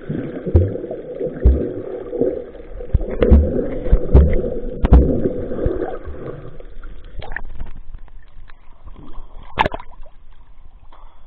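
Muffled underwater sound from a camera held under the sea: water noise with low thuds about once a second and sharp clicks. About halfway through, the camera comes up to the surface, and water splashes and sloshes around it, with one sharp splash near the end.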